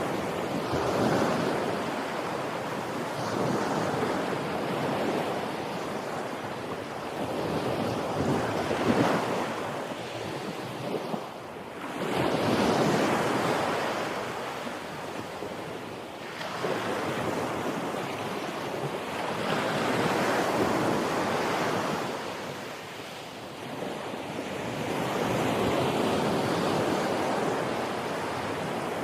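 Sea waves washing onto the shore, a steady rushing surf that swells and fades every few seconds as each wave breaks and draws back.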